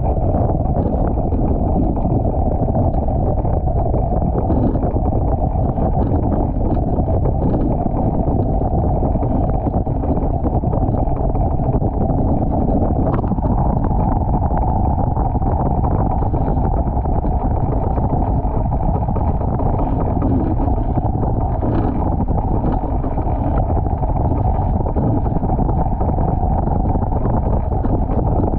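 Steady rush of wind and water on a foiling Moth dinghy sailing downwind at about 40 km/h, heavy wind buffeting on the microphone, with a couple of faint knocks.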